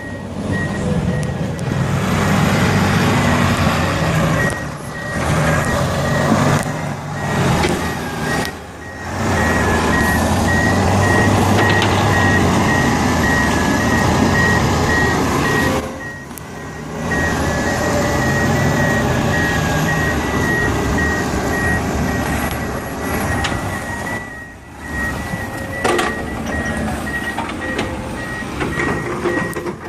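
Heavy construction machine engine running, with a back-up alarm beeping over it. Several brief drops in loudness break it up.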